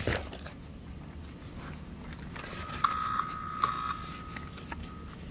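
Klein Tools wire tracer giving off a steady high electronic beep that starts about two and a half seconds in, with a couple of clicks early on. The beep grows fainter and stops shortly before the end.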